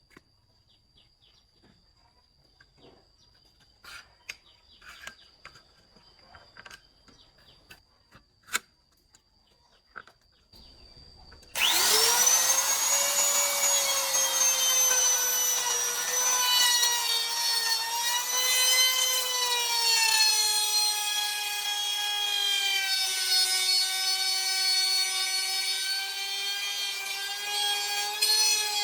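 Light handling knocks and clicks, then about twelve seconds in a circular saw mounted on a jointer planer starts with a fast rising whine. It runs on, cutting wood, its pitch wavering and sagging lower under the load.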